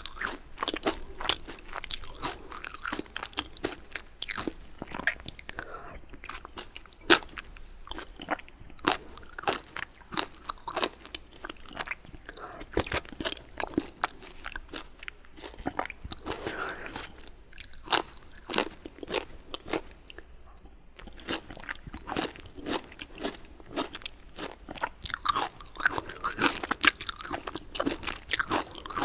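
Close-miked eating sounds from a meal of baguette and vegetable soup: crunchy bites and chewing, made of many small sharp crackling clicks.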